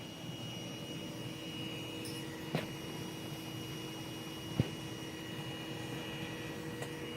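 Steady whir of an Anet A8 3D printer's cooling fans with a constant hum, still running after a finished print. Two short clicks come about two seconds apart near the middle.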